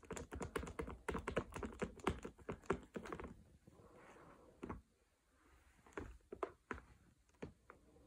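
Light, rapid clicks and taps of a baby's hands and food on a plastic high-chair tray, dense for the first three seconds, then a few scattered taps.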